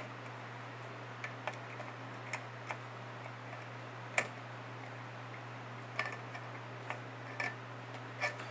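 Needle-nose pliers clicking against wire leads and the metal camera chassis as resistor leads are bent and reconnected: about ten light, irregular clicks, one louder about four seconds in, over a steady low hum.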